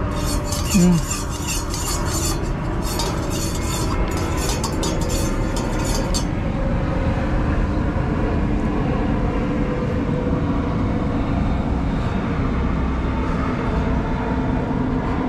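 A spork stirring in a stainless steel mug, scraping and clinking quickly against the metal for about six seconds and then stopping. A brief low sound about a second in, over a steady low background rumble.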